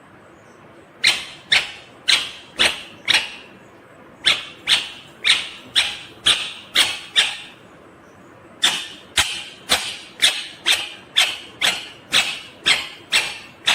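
Indian ringneck parakeet calling: short, loud, repeated screeches about twice a second, in three runs separated by short pauses.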